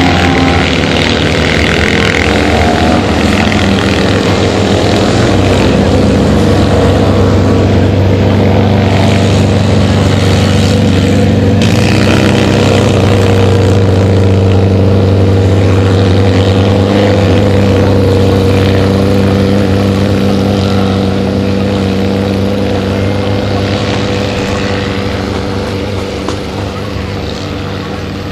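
Citroën 2CV race cars' air-cooled flat-twin engines running on a dirt autocross track, a loud, steady drone that fades over the last several seconds.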